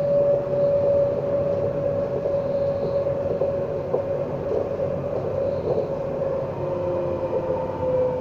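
Alstom Citadis tram running at speed, heard from inside the passenger saloon: a steady whine from the electric traction motors over the rumble of wheels on rail. The whine sinks slightly in pitch near the end, and a fainter higher whine joins it.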